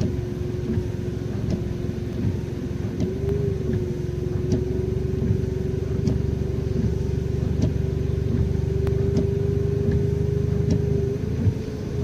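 A car running with a steady hum over a low rumble. Faint ticks come about every second and a half.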